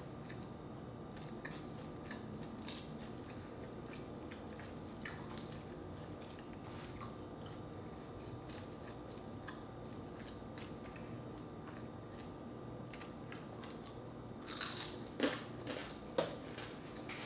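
Close-miked chewing of crispy deep-fried pork leg with rice: soft mouth sounds and faint clicks for most of the time, then a short run of louder crunching chews near the end.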